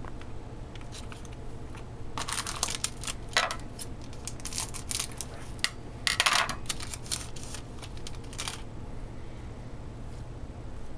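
Crinkling and rustling of hockey trading cards and foil pack wrappers being handled, in bursts between about two and eight and a half seconds in, over a steady low hum.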